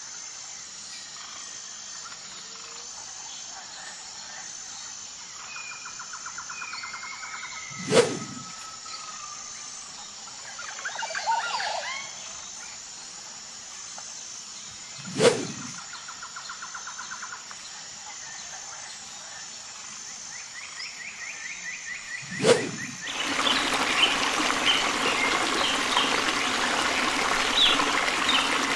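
Nature ambience of birds calling and insects buzzing with a steady high drone, cut by three short, loud, low thuds about seven seconds apart. In the last few seconds a denser, louder wash of insects and running water takes over.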